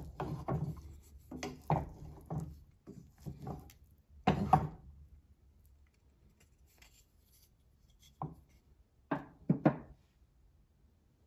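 Wooden spatula fluffing cooked rice in a pan: irregular scraping and tapping strokes, the loudest about four seconds in, then a pause and two quick knocks of wood near the end.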